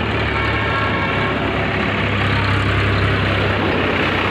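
A tractor's diesel engine idling close by, a steady low drone.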